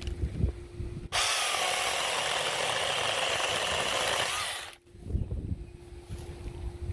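Cordless battery-powered mini chainsaw running at full speed while trimming a branch. It starts sharply about a second in and cuts off abruptly after about three and a half seconds. Wind rumbles on the microphone before and after.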